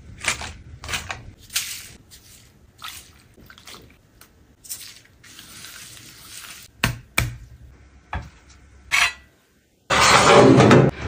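Kitchen food-prep sounds in quick cuts: a run of short taps and clicks of food and dishes on a plate, then a soft hissing stretch while marinade is rubbed into lamb shanks by a gloved hand. A few sharp clicks follow, then a louder noisy burst about a second long near the end as the lamb goes into the oven.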